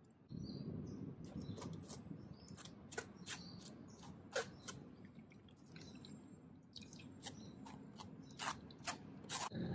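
Metal spoon scraping and clicking in a stainless-steel mesh strainer as blended fish-bone stock is pressed through into a steel bowl: many small sharp clicks over a low wet rustle of liquid draining.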